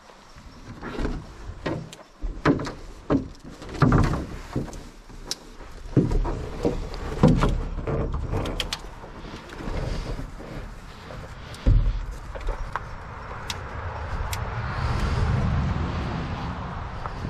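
A canoe and gear being handled at the put-in: a run of irregular knocks, thuds and scrapes. Near the end comes the rising and fading rush of a vehicle passing on the nearby highway.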